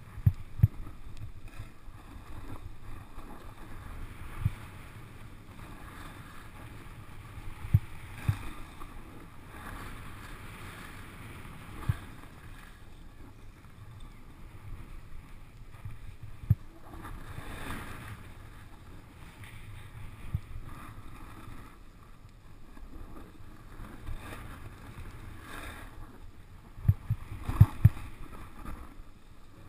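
Snowboard sliding over groomed snow: a steady low rumble with scattered sharp thumps as it rides over bumps, several close together near the end, and now and then a louder scraping hiss.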